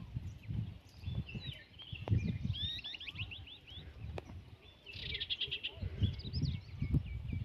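Several wild birds singing and chirping in a mix of quick repeated chirps and trills, with a rapid trill about five seconds in, over a low irregular rumble.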